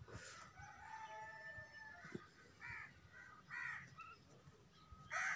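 Roosters crowing faintly: a drawn-out crow in the first two seconds, two short calls about a second apart in the middle, and a louder crow starting near the end.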